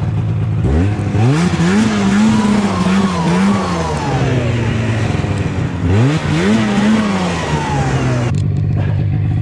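Ski-Doo snowmobile engine revved up from idle twice. Each rev is held a few seconds with a wavering pitch, then drops back, over the hiss of the track churning snow. The machine is stuck in deep snow and won't budge.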